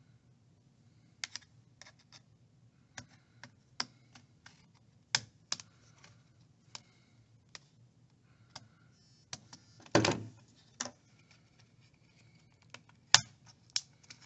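Plastic snap tabs of an HP Chromebook 11 G8 EE's clamshell case clicking loose one after another as a pry tool is worked along the case edge: irregular sharp clicks and snaps, with a short scraping rustle about ten seconds in and a loud snap a few seconds later.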